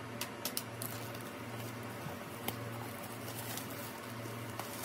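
A keyboard box being handled on a desk: a few light taps and scrapes, most of them in the first second and one sharper tap mid-way, over a low background hum.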